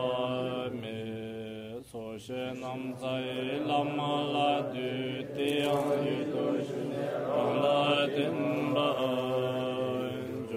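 A man's voice chanting a Tibetan Buddhist recitation in long, steady held notes, with a brief break about two seconds in.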